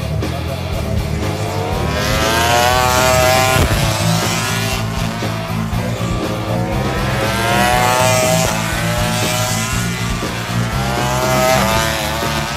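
MotoGP racing motorcycles accelerating hard, their engines revving up in rising sweeps three times, with a steady low background.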